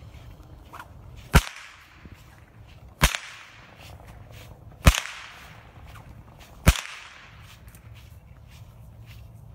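Cow whip cracked four times, roughly every two seconds, each a sharp crack with a short fading tail.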